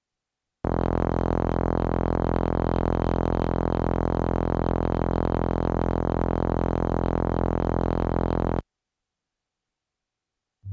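Synthesizer recreation of the lightsaber idle hum: a steady, buzzy low drone with many overtones. It starts abruptly about half a second in, holds at an even level for about eight seconds, and cuts off sharply.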